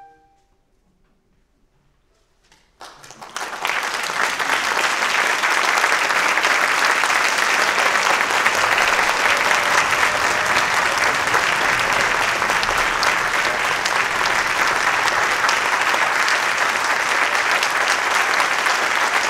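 A concert hall audience applauds: after a held orchestral chord dies away and about three seconds of near silence with a few scattered first claps, applause breaks out and continues steadily.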